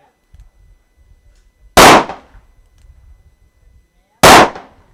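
Two handgun shots about two and a half seconds apart, each a sharp, very loud report with a short echoing tail.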